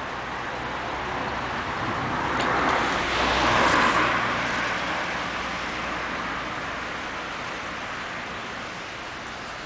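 A car passes on a wet road: its tyre hiss swells to a peak about three and a half seconds in, then fades away over a steady background hiss.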